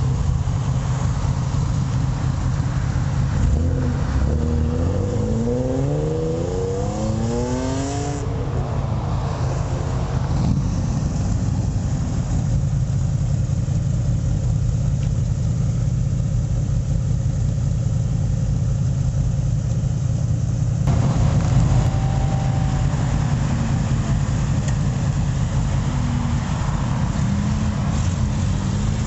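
Several car engines running as the cars drive off one after another, with a steady low rumble throughout. A few seconds in, one engine revs up in a clear rising sweep, and short rises in pitch come again near the end as another car pulls away.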